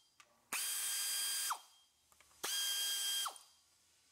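Pneumatic air ratchet running in two bursts of about a second each while backing out bolts, a steady whine that drops in pitch as the motor spins down at the end of each burst.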